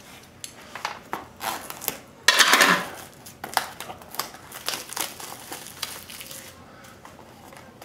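Crinkling and rustling of plastic packaging on a trading card box being handled and unwrapped, with scattered light clicks and knocks; the loudest rustle comes about two and a half seconds in.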